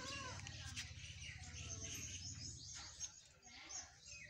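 Birds chirping over a low, steady rumble that fades away about three seconds in.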